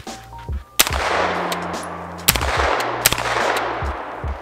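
Three single gunshots from a 9mm carbine, the first about a second in and the last two less than a second apart, each trailing off in an echo.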